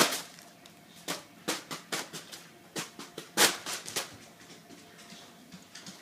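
A foil Mylar balloon being batted by the blades of a spinning ceiling fan: irregular crinkling slaps and smacks, bunched together in the middle with the loudest hit about three and a half seconds in, then thinning out.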